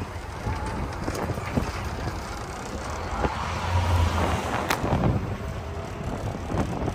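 Street traffic with wind buffeting the microphone. A low rumble swells about halfway through, and a single sharp click follows shortly after.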